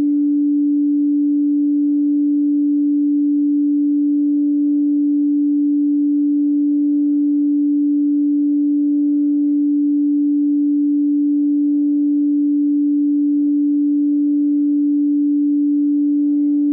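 Frosted quartz crystal singing bowl sung with a mallet around its rim: one steady, sustained low tone with faint higher overtones, holding an even level throughout.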